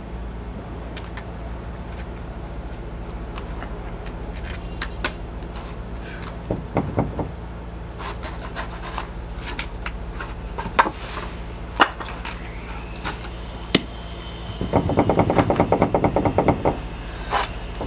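Scattered knocks and clanks of hand work on a sailboat's rudder and rudder stock as it is worked to drop out of the hull, with a fast rattle lasting about two seconds near the end.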